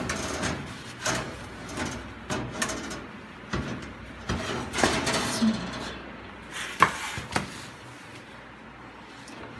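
Metal baking tin scraping and clattering against a wire oven rack as it is pulled out of the oven, with scattered knocks and one sharper clank about two-thirds of the way through.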